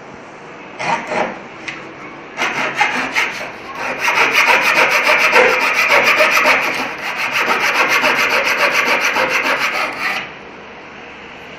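Small hand frame saw with a thin blade (an 8-in-1 multi-blade hand saw) cutting across a wooden board. It starts with a few short strokes, then saws with fast, even back-and-forth rasping strokes for about eight seconds and stops shortly before the end.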